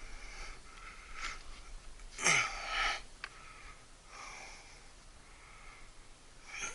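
A person breathing hard while crawling through a crawl space, in a run of soft puffs with the loudest breath about two seconds in, over the rustle of crawling.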